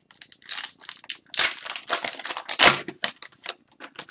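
Foil wrapper of an Upper Deck hockey card pack crinkling and crackling in the hands as it is opened and handled, with the cards rustling. The crackling comes in quick irregular bursts, loudest through the middle, and thins to a few light clicks near the end.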